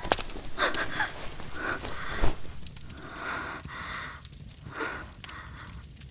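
A woman breathing hard in a series of separate breaths, about one a second, with a single dull thump a little after two seconds in.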